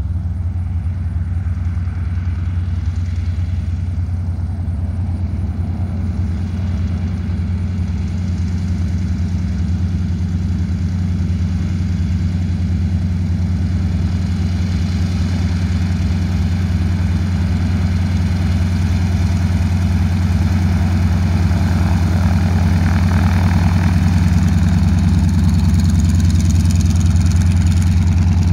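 North American SNJ (T-6 Texan) trainer's nine-cylinder Pratt & Whitney R-1340 radial engine running steadily at low taxiing power, gradually growing louder as the plane taxis closer.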